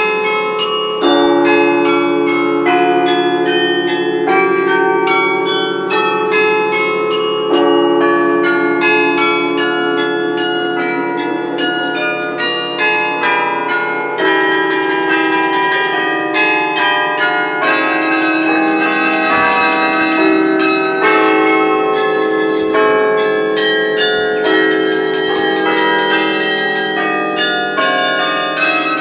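Carillon of the Cunera tower being played by hand, a melody of quickly struck bells ringing over long-sounding low bells.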